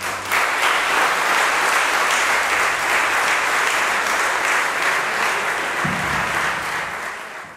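Audience applauding steadily right after the final chord of a string quintet dies away, the clapping fading out near the end.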